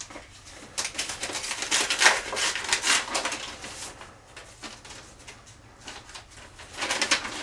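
Paper rustling and crinkling as sheets are unfolded and handled, in a long run of crackles starting about a second in and a shorter run near the end.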